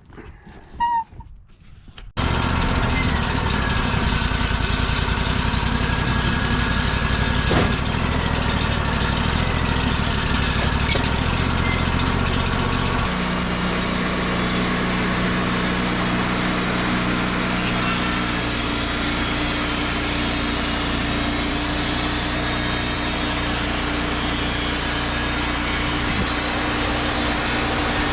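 Wood-Mizer LT40 portable band sawmill running: its loud, steady engine sound comes in abruptly about two seconds in. About thirteen seconds in the sound changes, the low engine note shifting and a brighter hiss added over the top.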